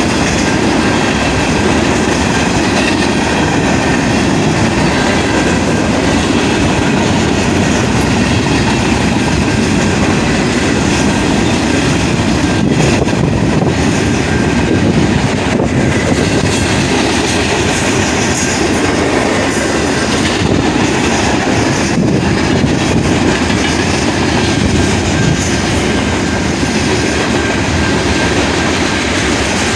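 A passing train's cars rolling by on the track, a loud, steady rumble that holds without a break.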